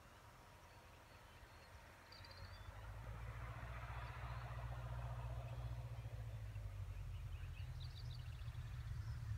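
Single-engine propeller light aircraft on its landing approach, its engine drone low and growing steadily louder from about two seconds in as it comes in over the field.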